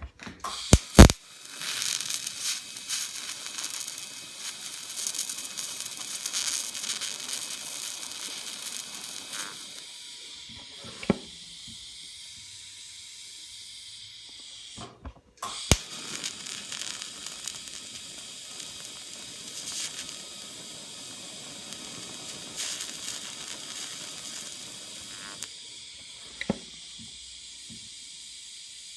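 Electric arc welding nuts down onto a steel part: two long welding beads with a steady crackling hiss, the arc striking sharply about a second in, breaking off briefly about halfway, then striking again and running until just before the end. The nuts are galvanized, which gives some contamination in the weld.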